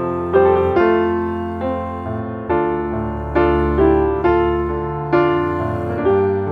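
Background piano music: gentle chords and notes struck in a steady rhythm, each left to ring and fade.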